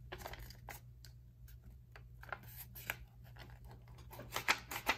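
Folded paper of a paper airplane rustling and crackling in a string of short crackles as a pencil is worked into a small cut hole in the fold and the plane is handled, loudest about four and a half seconds in.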